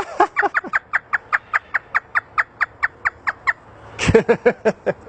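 African grey parrot mimicking a hysterical human laugh: a rapid string of short 'ha' notes, about five a second, followed about four seconds in by a second, lower burst of laughter.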